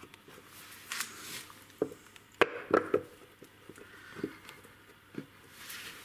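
Scattered clicks and knocks, the loudest two about two and a half seconds in, as a new metal-shielded ball bearing is handled and set into the bearing seat of a washing machine's plastic tub half.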